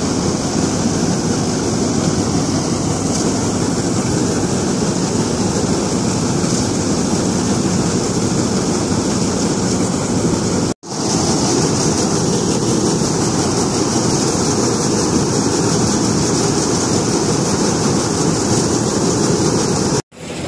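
Jaswant combine harvester running while its unloading auger pours threshed paddy into a trolley: a loud, steady mechanical noise mixed with the rush of falling grain. The sound cuts out abruptly twice, about 11 and 20 seconds in.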